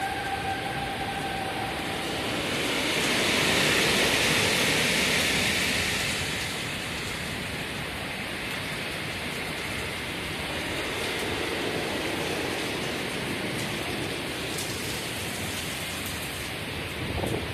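Heavy rain falling in a severe thunderstorm, with wind. The rain swells louder for a few seconds from about three seconds in. A steady outdoor warning-siren tone fades out in the first second or two.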